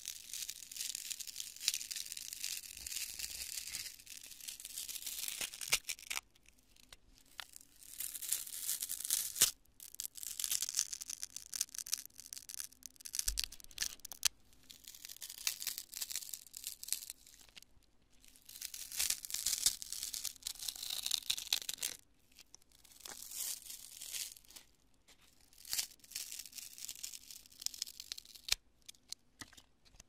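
Hands squeezing and tearing lumps of cured construction foam close to the microphone: crisp crunching and crackling, a meringue-like crunch. It comes in bursts a few seconds long with short pauses between.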